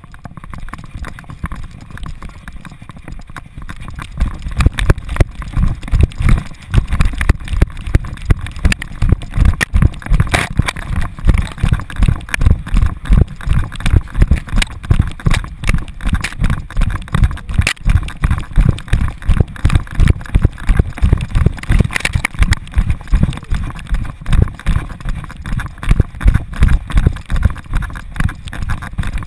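Fast, steady rhythm of low thuds from a running American Staffordshire Terrier's galloping strides, jolting the camera harnessed to its back, over a steady rushing noise of air past the microphone.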